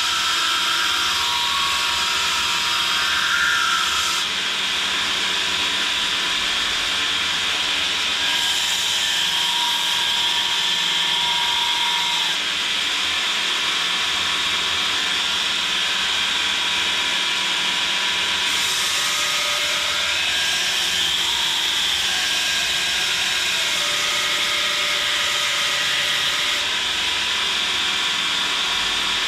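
Belt grinder running with a small steel knife blade pressed to the moving abrasive belt, grinding the bevel: a steady hiss of belt on steel that shifts in tone every few seconds as the contact changes.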